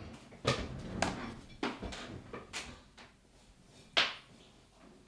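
A handful of light, scattered taps and knocks: handling noise from working with the tablet and objects on the desk. About five of them, with the sharpest near the end.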